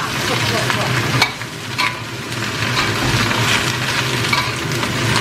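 Vegetables being stir-fried in a hot pan with a metal spatula: a steady sizzle, with a few sharp scrapes and knocks of the spatula against the pan.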